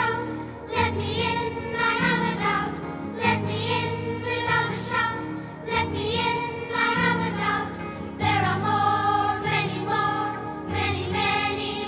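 Background music with a bass line that changes note about once a second under a high, wavering melody.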